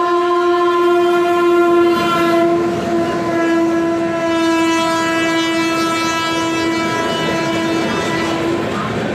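Indian Railways locomotive horn blown in one long, loud continuous blast over the rumble and clickety-clack of the passing train's wheels. The horn breaks off shortly before the end.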